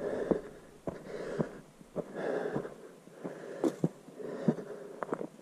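A person breathing hard while walking, with a heavy breath about once a second. Footsteps fall in between.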